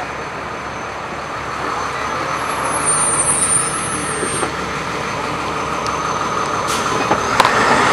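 A truck engine running steadily, an even mechanical noise that swells slightly and then settles. Two sharp clicks come near the end.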